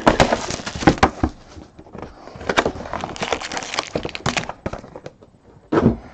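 Plastic wrap on a sealed box of trading cards crinkling and crackling in irregular handfuls as it is torn off and the box is opened by hand. A louder bump comes near the end.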